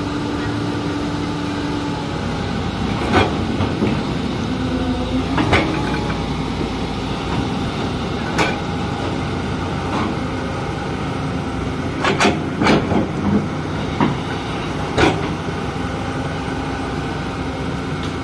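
Hyundai 220LC crawler excavator's diesel engine and hydraulics running under load while it digs, the engine pitch shifting as the arm works. Sharp knocks and clanks from the bucket and linkage come about ten times, bunched together about twelve to fifteen seconds in.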